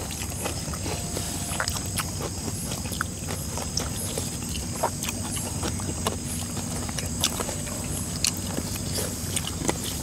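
People eating fried chicken and rice by hand: scattered small clicks and crunches of chewing and handling food. Behind them is a steady high-pitched insect chorus.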